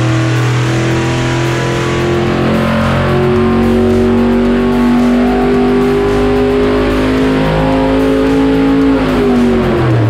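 XVI Power 16-cylinder marine engine running under load on an engine dynamometer, its pitch climbing slowly through a rev sweep and then dropping near the end as the throttle comes off. Background music plays underneath.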